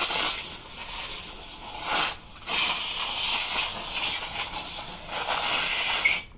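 Handheld upholstery steamer hissing as it jets steam onto a sundeck cushion seam to soften it and help it set down flat. The hiss breaks briefly about two seconds in and cuts off suddenly near the end.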